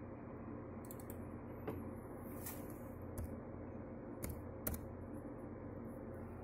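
A handful of computer keyboard clicks, irregularly spaced, over a steady low hum.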